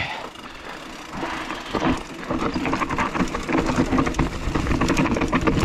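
Mountain bike rolling fast over rough trail: tyre noise with a dense rattle of quick clicks from the bike, getting louder.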